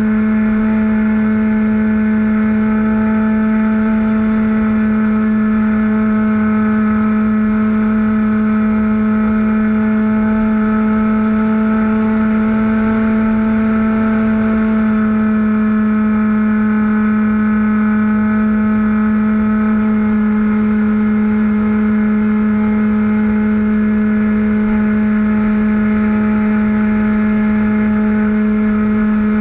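Propeller and motor of a small aircraft in steady cruising flight, one constant droning pitch with its overtones, and wind rushing over the microphone underneath.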